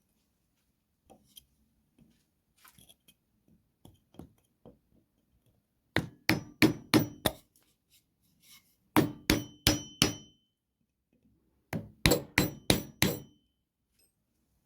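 Hammer blows while fitting a new axe handle: three quick runs of about five strikes each, a few seconds apart, some with a short metallic ring. Before them, a few light knocks and handling sounds.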